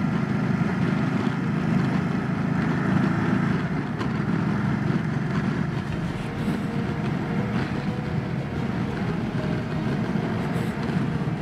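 Motorcycle running steadily at road speed, its engine drone mixed with wind rush.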